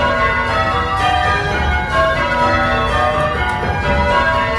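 A light ring of eight church bells, mostly modern Whitechapel castings with a tenor in B, being change-rung in Surprise Major. The bells are struck one after another in a continuous, even stream, heard from the ringing chamber below.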